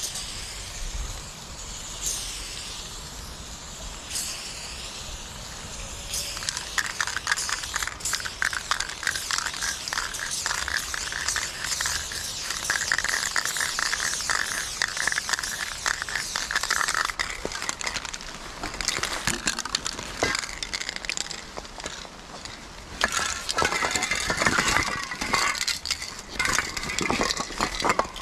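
Aerosol spray can hissing in long passes as silver paint is sprayed onto a brick wall, with dry leaves crunching underfoot. Near the end a bag is rummaged through.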